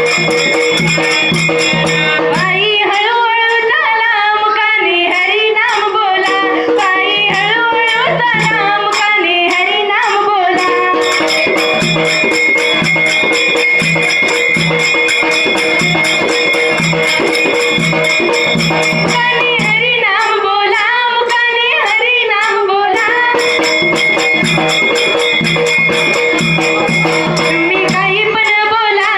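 Dhangari ovi, a Marathi folk song: a woman's voice sings phrases over a sustained instrumental drone and a steady percussion beat, with instrumental stretches between the sung lines.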